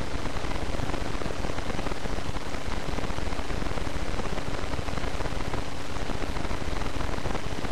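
Steady loud hiss of noise with a faint low hum underneath, unchanging throughout.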